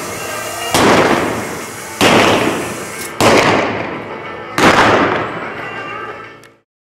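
Four revolver shots with blank cartridges from a rider on horseback, roughly a second or more apart, each ringing out in a long echo through the indoor arena. The sound cuts off abruptly near the end.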